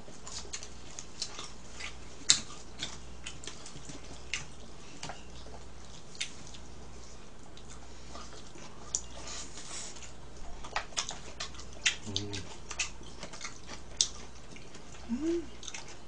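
Eating sounds: scattered light clicks of chopsticks against the food bowls, with chewing and mouth noises, over a low steady hum.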